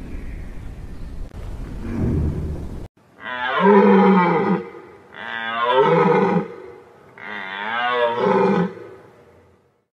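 Deer stag roaring three times, each a long, low call of about a second and a half, about a second apart. Before the roars, about the first three seconds hold a low, steady rumbling noise that cuts off abruptly.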